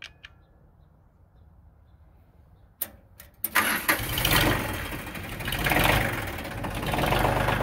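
Ford 1520 tractor's three-cylinder diesel engine being started with the key: a few clicks about three seconds in, then it catches and keeps running, its level swelling and dipping before holding steady.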